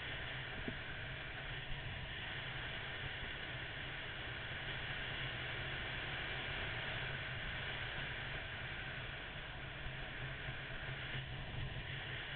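Steady wind noise rushing over a bike-mounted camera's microphone as a Honda VFR800 motorcycle cruises at a constant pace, with the low, even drone of its V4 engine underneath.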